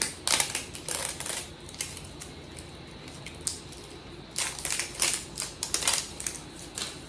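Plastic crinkling and clicking as a Miniverse capsule ball is unwrapped and pried open, in two spells of quick crackly rustles.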